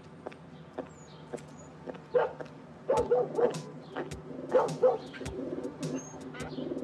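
A mix of caged poultry and a dog: pigeons cooing, a dog barking a few times around the middle, and ducks starting a run of quacks near the end.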